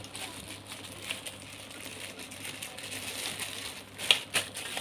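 Clear plastic bag rustling as a plastic toy pistol inside it is handled, with a few sharp clicks, two of them close together near the end.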